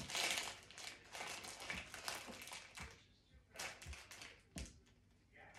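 Soft rustling and scraping of hands and a knife at a block of cheese for the first few seconds, then a few light knife knocks on a wooden chopping board as the cheese is cut.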